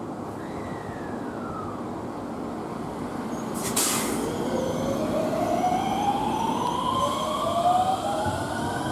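JR West 521 series electric train pulling away, the whine of its traction motor inverters climbing steadily in pitch as it accelerates. A short hiss sounds about four seconds in.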